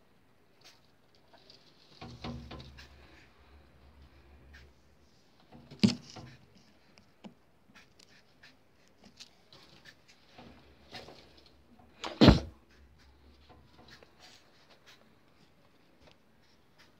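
Cage birds, cockatiels among them, moving about with scattered faint chirps and scratching. Two sharp knocks about six seconds apart are the loudest sounds, with low rumbling around each.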